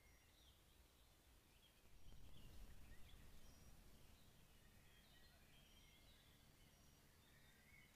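Faint birdsong in woodland: short, scattered chirps, with a brief low rumble about two seconds in.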